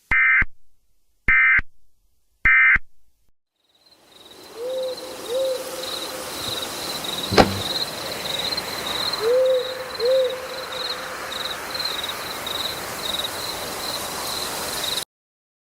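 Three short bursts of Emergency Alert System data tones, the end-of-message signal that closes an EAS alert. Then night ambience: crickets chirping steadily, an owl hooting twice in pairs, and one sharp click about halfway through. The ambience cuts off abruptly near the end.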